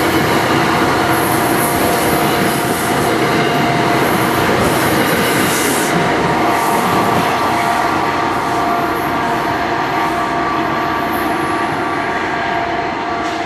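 NJ Transit Comet passenger coaches and their cab car rolling past at close range: steel wheels on rail with a loud clattering rush, a few sharp clicks, and a steady high ringing tone running through it. The sound eases slightly near the end as the train pulls away.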